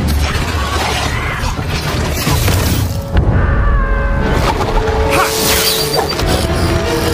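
A sound-effect explosion with glass shattering, about three seconds in, over music from an animated show's soundtrack.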